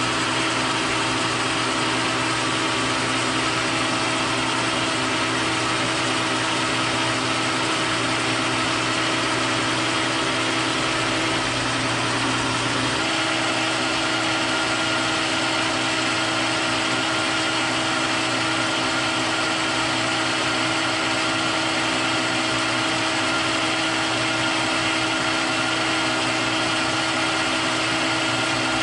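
Metal lathe running steadily, turning a ground and polished steel shaft while a carbide-insert tool takes a light ten-thousandths pass. A steady machine hum with several held whining tones, shifting slightly about thirteen seconds in.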